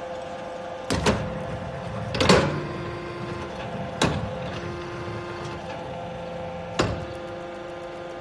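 Hydraulic charcoal tablet press running: a steady hydraulic-unit hum with a tone that cuts in and out, broken by four sharp clanks from the press and its wire-mesh conveyor, the loudest about two seconds in.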